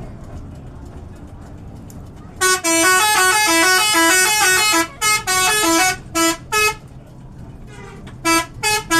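A bus's multi-tone 'telolet' horn playing a fast tune of short stepped notes, starting about two and a half seconds in, then breaking into shorter blasts, pausing, and starting up again near the end. Before it, a low rumble of road traffic.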